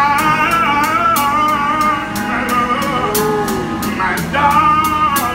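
A man singing a slow ballad in a strong, held voice with vibrato, pausing briefly for breath about four seconds in. He is backed by a street drummer's snare and cymbal keeping a steady beat, with guitar under it.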